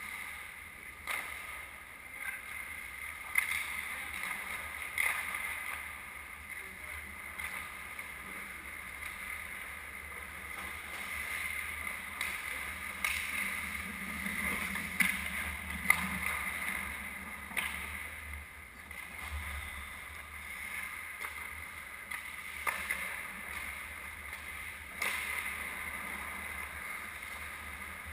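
Ice hockey on an indoor rink: skate blades scraping and gliding on the ice, with a sharp clack of stick or puck every few seconds over a steady arena hum.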